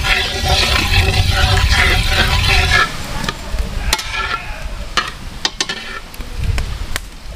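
Dried red chillies, bay leaves and panch phoron sizzling in hot mustard oil in a wok while a spatula stirs and scrapes the pan. The sizzling drops away a little under three seconds in, leaving a quieter stretch with scattered sharp clicks and taps.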